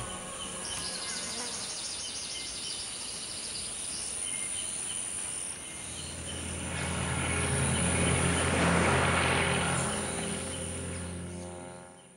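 Animated-film soundtrack ambience: rapid high insect chirping over a steady hiss, then a low drone and a rushing swell that rise about halfway through, peak, and fade out near the end.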